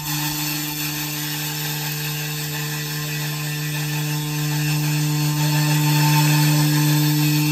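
A 5-axis CNC router's spindle running at a steady pitch while its long cutter mills a white foam block: a steady hum over a rushing cutting noise, growing a little louder after the middle.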